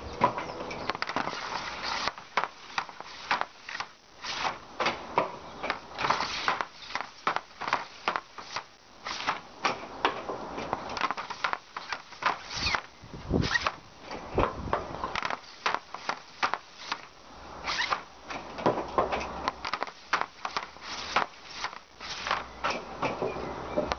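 A CCM RBZ hockey stick's blade clacking and scraping on a plastic shooting pad and striking pucks: many sharp, irregular clicks and cracks, with a deeper, louder thud about halfway through.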